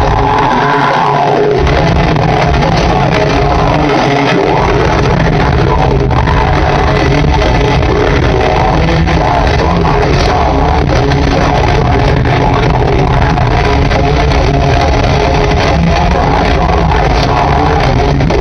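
Heavy metal band playing live, distorted guitars, bass and drums at full volume, heard through an overloaded phone microphone, so the sound is muddy and clipped. The bass drops out briefly near the start and again about four seconds in.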